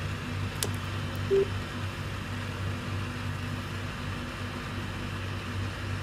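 A Lightning plug clicks into an iPhone's charging port, and a short single beep sounds about a second later, over a steady low background hum.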